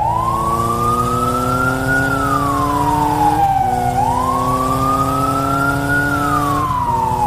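Police siren wailing, its pitch rising slowly and falling again twice, each rise and fall taking about four seconds, over a steady engine-like drone. It starts and cuts off abruptly.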